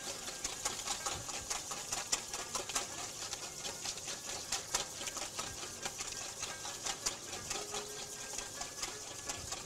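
A whisk beating in a bowl with rapid, irregular clicks against its side, emulsifying an orange vinaigrette as olive oil is drizzled in so the dressing doesn't separate.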